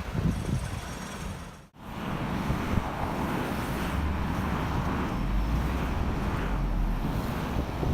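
Wind buffeting the microphone over a steady outdoor noise, with a low rumble in the second half; the sound cuts out for an instant about two seconds in.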